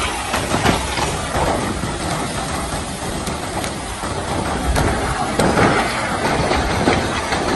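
Advancing lava flow front crackling and rumbling: a dense steady noise with many small sharp cracks throughout.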